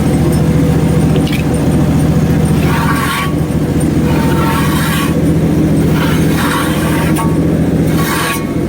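Portable bandsaw sawmill's engine running steadily, with surges of hissing noise that come and go several times.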